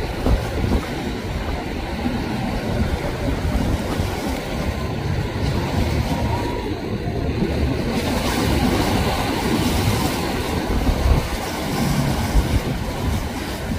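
Rough inlet surf breaking around a large motor yacht as its hull smashes through the waves: a steady rush of water with a heavy low rumble, and a few louder surges, one near the start and two near the end.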